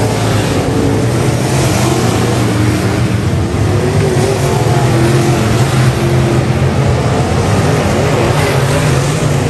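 Several dirt-track race car engines running together as the cars circle the clay oval, loud and continuous, their pitch wavering a little as they lift and accelerate.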